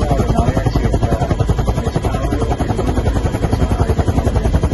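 Loud, steady helicopter rotor and engine noise heard from inside the cabin with the side door open, the blades beating in fast, even pulses.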